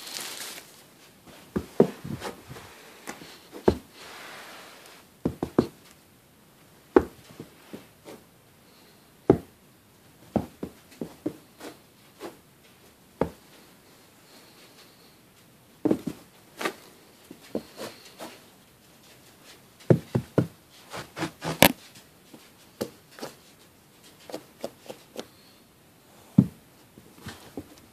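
Pet skunk stomping its front feet on a rug in irregular bursts of sharp thumps, a few at a time with short pauses between; the stomps are play, the mark of a happy skunk.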